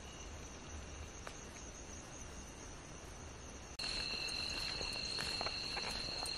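Crickets chirring in a continuous high-pitched chorus. About four seconds in, the chorus turns louder and settles on a different pitch.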